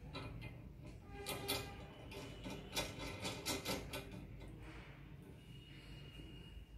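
Stainless steel retractor parts clicking and clinking as a Harrington retractor blade is fitted into a clamp on a Thompson retractor frame: a string of light metal clicks and taps, thickest in the middle.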